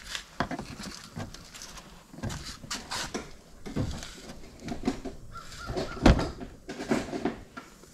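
Clicks, knocks and scrapes of hand tools working plastic push-pin retainer clips out of a minivan's plastic wheel well liner, with a heavier thump about six seconds in.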